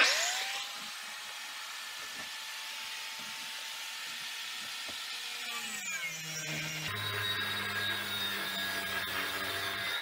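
An electric power tool's motor spins up into a steady high whine. Between about five and a half and seven seconds in, its pitch drops to a lower, heavier hum, as if the motor is taking load, and it runs on at that pitch.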